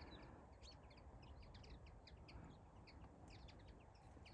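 Faint, scattered chirps from a flock of small finches, many short calls overlapping.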